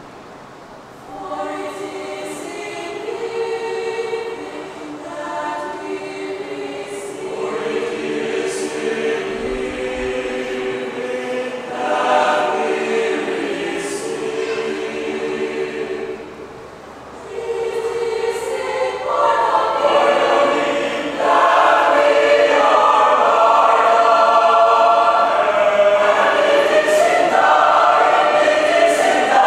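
Mixed choir of men and women singing in several parts. There is a brief break about 17 seconds in, then the singing swells and is loudest over the last third.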